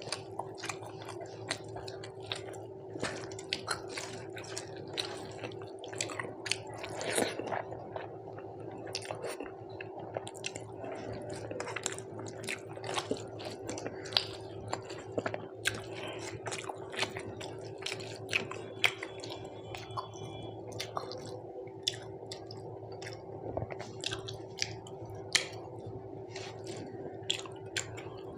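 Close-up chewing and irregular wet clicks of eating a meal of rice, dal and fish curry, over a steady low hum.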